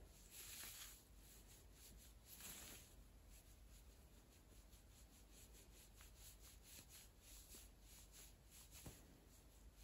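Near silence with faint rustling from nitrile-gloved hands painting gel polish onto a nail swatch tip: two brief soft rustles, about half a second and two and a half seconds in, and a light tick near the end.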